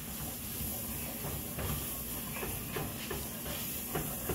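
Onions and garlic sizzling steadily in melted butter in a metal sauté pan, with a few faint clicks as cornstarch is sprinkled in and worked around the pan.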